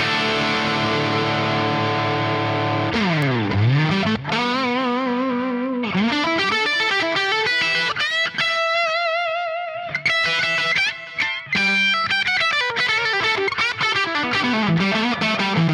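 Overdriven electric guitar: a Gibson Les Paul with 1958/59 PAF humbuckers played through a 1966 Marshall JTM45 amp, miked at a Celestion V30 speaker. A chord rings for about three seconds, then a slide down the neck and back up, then single-note lead lines with bends and wide vibrato.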